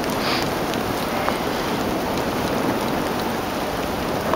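Dog sled pulled by an eight-dog team over a soft snow trail: a steady hiss of the runners and the dogs' paws in the snow.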